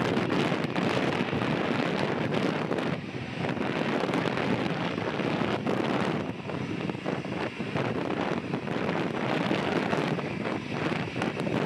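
Boeing 737-800's CFM56 jet engines at takeoff thrust during the takeoff roll, a steady rushing noise, mixed with wind buffeting the microphone.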